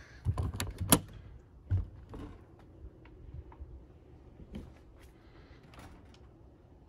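Coleman Lantern 17B camper entry door being unlatched and swung open: a quick run of sharp clicks and knocks in the first second, one more knock a little later, then faint scattered taps.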